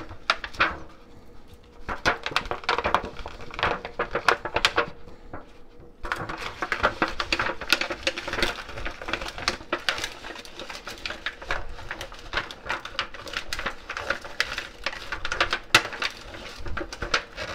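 Disposable aluminium foil baking pan crinkling and rattling against the countertop as butter is rubbed around its inside by hand: a steady run of quick, irregular crackles, a little busier after about six seconds.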